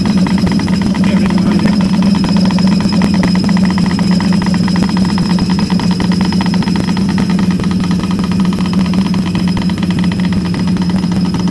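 Pneumatic soil-piercing mole hammering its way underground, a rapid, even knocking, over the steady drone of the air compressor that drives it.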